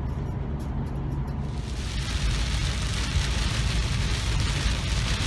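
Low rumble of the RV driving on the road, heard from the cab. About a second and a half in, heavy rain starts pelting the windshield: a steady hiss over the rumble.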